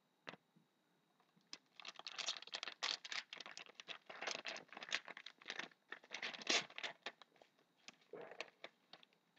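Foil trading-card pack wrapper being torn open and crinkled. It is a dense run of crackles lasting about five seconds, with a short burst again near the end.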